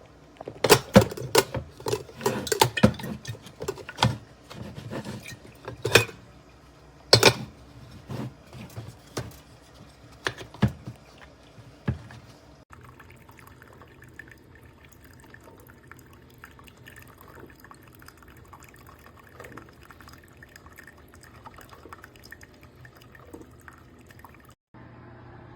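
Knocks and clatter of a small drip coffee maker and its parts being handled, mixed with liquid being poured. The sharp knocks come thick for about the first twelve seconds, then it goes quiet apart from faint small sounds.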